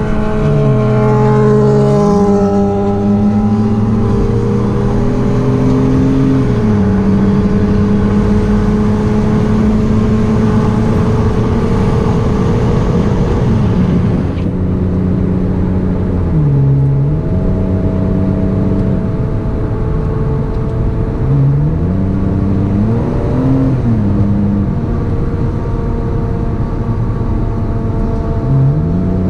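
Hyundai Azera V6 with its rear mufflers removed, heard from inside the car, accelerating hard: the engine note climbs and drops several times as it revs up and eases off.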